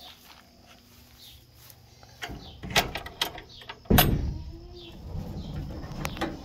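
A barn door being worked open: a run of knocks and rattles, then two loud bangs about a second apart, the second the loudest, followed by a low scraping rumble.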